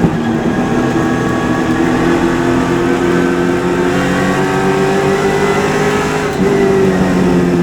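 Super late model race car's V8 engine running hard under racing load. Its pitch climbs slowly, drops briefly about six seconds in as the throttle comes off, then picks up again.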